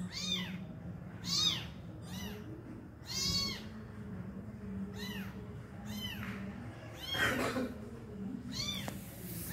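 Tiny kitten crying: short, high-pitched mews that rise and fall in pitch, repeated about once a second, one of them louder about two-thirds of the way through.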